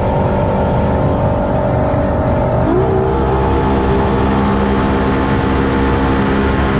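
Boat engine running steadily; about two-thirds of the way in its note dips and then settles at a new steady pitch, as when the throttle is changed.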